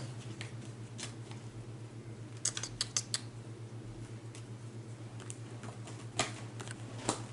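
Light clicks and taps of tarot cards being handled on a table, with a quick cluster of clicks about two and a half seconds in and a few single ones later, over a low steady hum.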